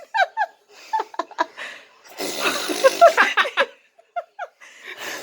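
Short bursts of people's laughter and giggling, broken by brief pauses, with a longer breathy stretch in the middle.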